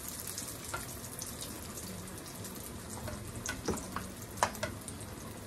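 Oil sizzling steadily in a frying pan, with a few short clicks and scrapes of a metal ice cream scoop working salmon croquette mixture in a bowl.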